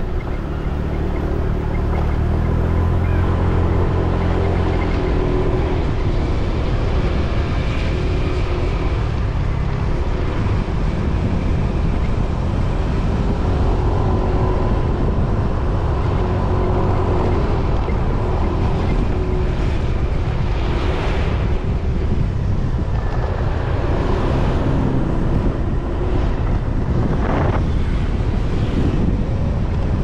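Motorbike engine running while riding along a road, with a steady rush of wind and road noise.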